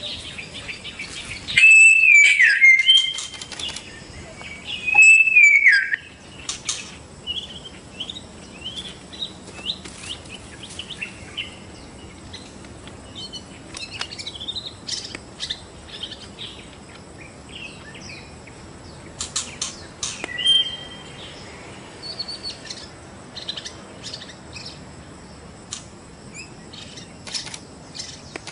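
White-rumped shama (murai batu) singing: two loud gliding whistled phrases in the first six seconds, then a long run of quieter, quick chattering notes with sharp clicks, and another short whistled phrase about twenty seconds in.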